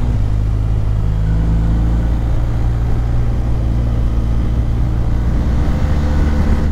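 Motorcycle engine running at a steady cruise, heard from the rider's seat with wind noise on the microphone. The engine note steps to a new pitch a few times.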